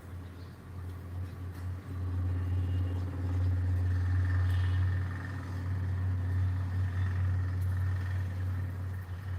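Low steady motor hum, growing louder about two seconds in and holding.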